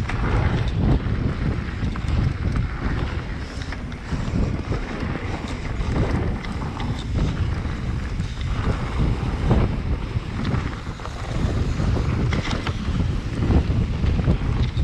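Wind buffeting the microphone of a camera riding on a mountain bike at speed down a dirt trail. It is a steady rumble with tyre noise and occasional brief rattles over bumps.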